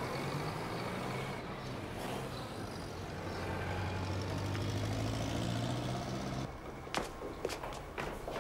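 A low, steady hum with a few sustained low tones that cuts off about six and a half seconds in, giving way to footsteps clicking on a hard floor.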